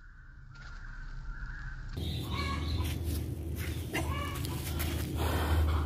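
A few short animal calls, like a fowl clucking, over a steady low rumble.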